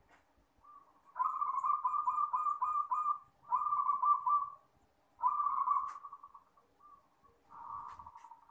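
Zebra dove (perkutut) singing its cooing song: three main phrases of rapid staccato coos, the first about two seconds long, then a fainter phrase near the end.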